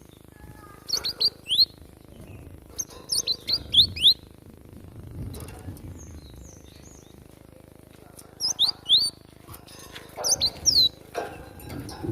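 Cinereous tit (gelatik batu) calling in four quick bursts of short, sharp, rising high notes, given as wild fighting calls.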